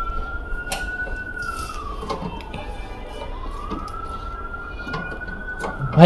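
Emergency vehicle siren on a slow wail, its pitch rising, holding and falling over about four seconds, with a few light clicks as a screwdriver works the casing screws.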